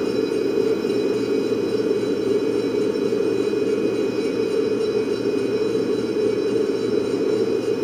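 Hot-air blower of a fluid bed coffee roaster running steadily, with a 1 kg batch of beans churning in the glass roasting chamber during the middle of the roast, before first crack.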